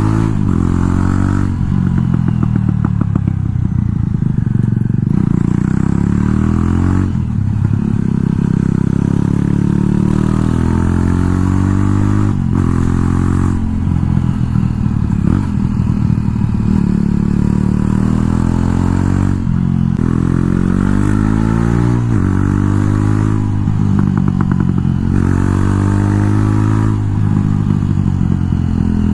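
Jawa Perak's single-cylinder engine running through a loud aftermarket exhaust under way, the note rising as it pulls and dropping back at each gear change, several times over.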